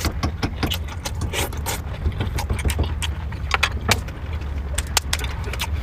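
Chopsticks clicking and scraping against a metal lunchbox while eating, many short sharp clicks, over a steady low rumble.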